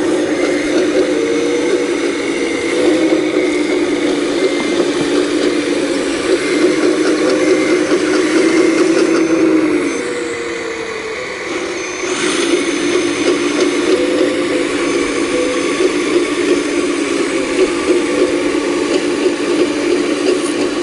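Excavator running and working, its engine and hydraulics giving a steady, slightly wavering hum. The level dips about ten seconds in and comes back about two seconds later.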